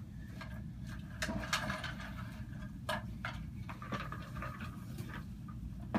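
Scattered knocks, clacks and light rattling as an anatomical skeleton model on its stand is handled and moved and a stool is pulled up, over a steady low room hum.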